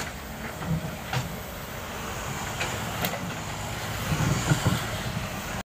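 Komatsu excavator's diesel engine running steadily, with occasional sharp metallic clicks and knocks; the sound cuts off suddenly just before the end.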